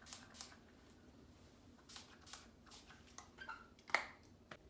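Heat protectant pump spray being sprayed onto the ends of the hair: several short, faint hissing bursts, the loudest near the end.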